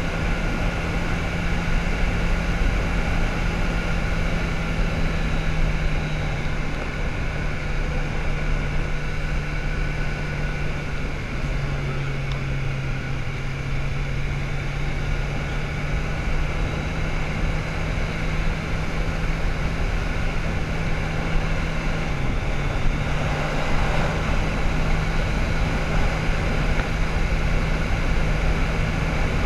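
Motorcycle engine running at a steady cruise, with wind rushing over the microphone. The engine note drops lower about a third of the way in, slowly climbs back, and dips again briefly later on.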